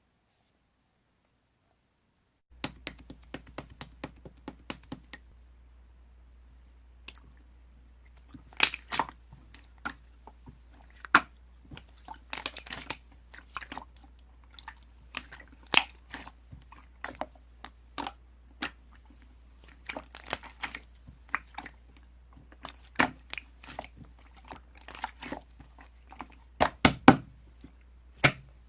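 Slime being played with by hand: irregular sharp clicks, pops and crackles, starting a couple of seconds in after near silence, over a steady low hum.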